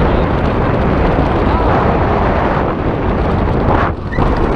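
Wind buffeting the microphone of a wrist-held action camera during a tandem parachute descent under an open canopy: a loud, steady rush of air that drops briefly near the end as the camera swings.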